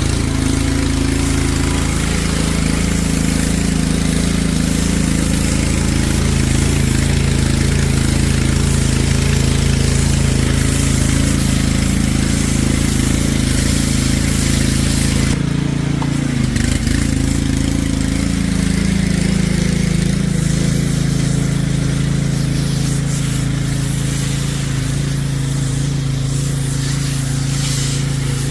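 DeWalt 3600 psi gas pressure washer running, its engine a steady hum under the hiss of the high-pressure water spray. About halfway through, the spray hiss cuts out for a moment and the engine note shifts, then the spray resumes.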